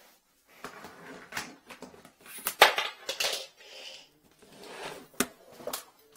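Clatter of an aluminium-framed tool case being handled and shut: rustling, a loud knock about two and a half seconds in, and sharp clacks a little after five seconds.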